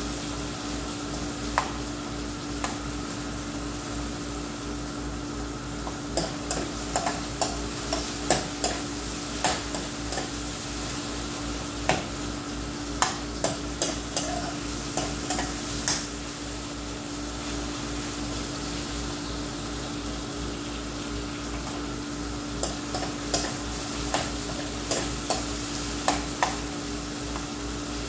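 Chicken frying with a steady sizzle in a non-stick frying pan, while a metal spatula stirs it and repeatedly clinks and scrapes against the pan. The clinks come in clusters, with a quieter stretch of plain sizzling in the middle.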